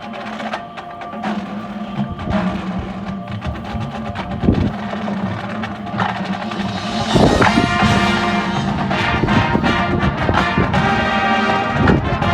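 High school marching band performing: struck percussion at first, then sustained pitched chords swelling in about seven seconds in, with the band playing louder from there.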